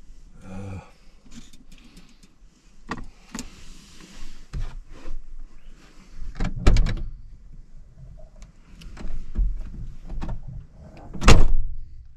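Knocks and clunks of a camper van's side door or window being worked from inside, while a noodle cup is drained out of it. There are two loud thumps, one past the middle and a heavier one near the end.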